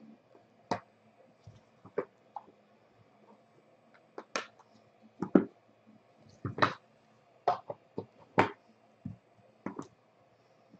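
Hands handling a small cardboard box and a stack of trading cards: irregular short taps, scrapes and clicks of card stock, about a dozen, loudest in the middle.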